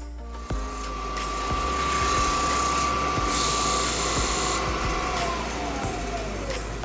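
Wood lathe running with a steady whine while a tool works the inside of a spinning English oak box, with a brief brighter hiss of the cut in the middle. About five seconds in, the whine falls in pitch as the lathe slows to a stop, the inside finished.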